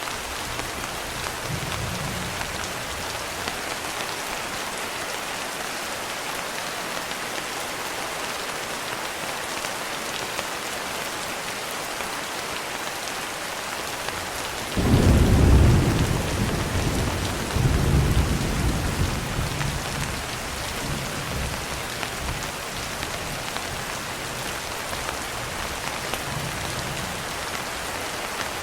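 Steady rain hiss with a roll of thunder about halfway through: a sudden low rumble that swells again a few seconds later and then fades away.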